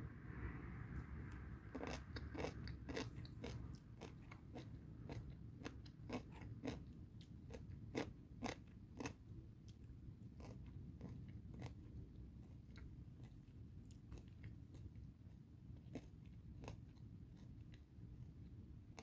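A person chewing and crunching food close to the microphone. Crisp crunches come several a second from about two seconds in, then thin out to scattered ones after about nine seconds, with a low steady hum underneath.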